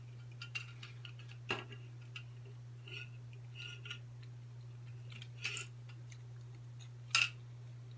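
Small clicks and taps of plastic headphone parts being pried and handled with a knife and screwdriver, with a few sharper clicks, over a steady low hum.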